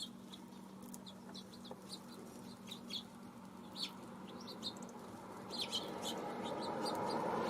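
Small feeder birds chirping: many short, high chirps scattered throughout. A rushing noise builds steadily through the second half and is loudest near the end.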